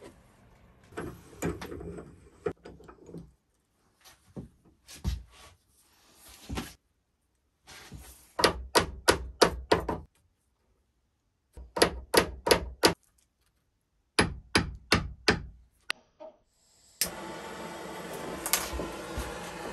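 Ball-peen hammer striking steel parts clamped in a bench vise: three runs of quick, sharp metal blows, five or six in each. Near the end a handheld gas torch starts with a steady hiss.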